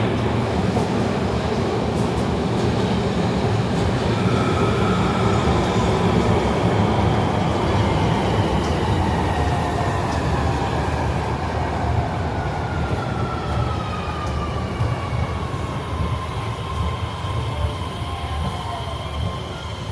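Electric train at a station: a steady low rumble with a high whine that slowly falls in pitch, as the train slows down.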